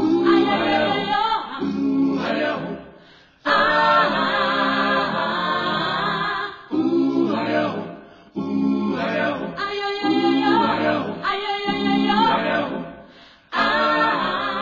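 Background choral music: an a cappella choir singing in phrases that fade out, with a few short breaks, each new phrase coming in sharply.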